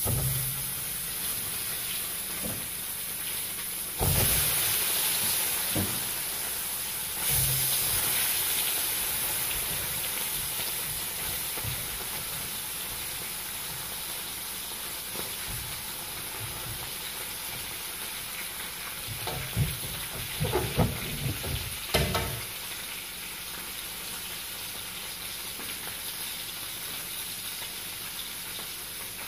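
Crumb-coated kissing gourami deep-frying in hot oil, a steady sizzle that jumps louder suddenly about four and seven seconds in. A few short knocks come around twenty seconds in.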